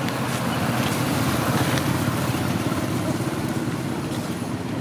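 A steady low rumble of an engine running.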